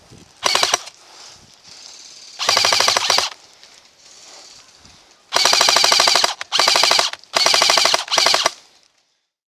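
Airsoft rifle firing six full-auto bursts, each a rapid rattle of shots lasting up to about a second. The last four bursts come in quick succession.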